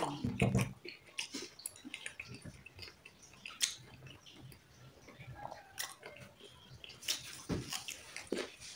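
A person chewing and eating food close to the microphone, with scattered soft clicks and wet mouth sounds.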